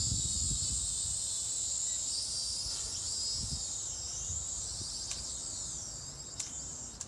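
Small toy quadcopter's electric motors and propellers whining at a high pitch. The pitch wavers up and down as the throttle changes, and the sound gradually fades toward the end.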